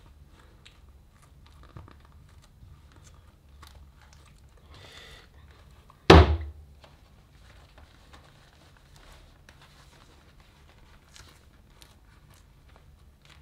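Faint small clicks and rustling of hands handling a vinyl inflatable and a small plastic valve, with one loud thump about six seconds in.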